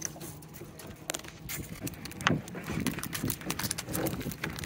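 Wire crab pot rattling and clinking while it is handled and emptied of blue crabs: a run of small clicks and knocks, with one sharper knock about two seconds in.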